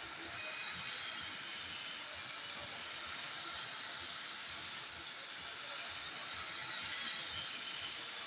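Lego 9V electric trains running on their metal-railed track: a steady high whirr of the small train motors and plastic wheels. It gets a little louder about seven seconds in as a train passes close.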